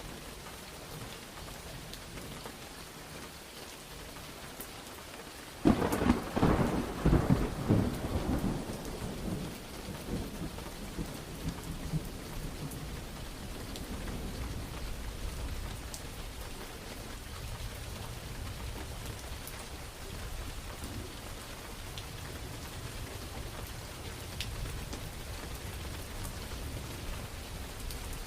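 Steady rain falling, with a sudden close thunderclap a little way in that crackles and rolls for a few seconds, then dies away into a low rumble under the rain.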